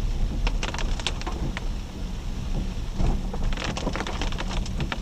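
Jeep Grand Cherokee WK2 driving slowly over a rough dirt trail: a steady low rumble with irregular sharp taps and clicks over it, in clusters about half a second in and again past the three-second mark.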